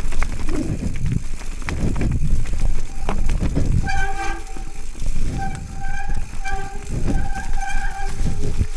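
Mountain bike rattling down a rough trail with wind rumble, then from about halfway a disc brake squealing in short repeated squeals at one fixed pitch as the rider brakes on and off.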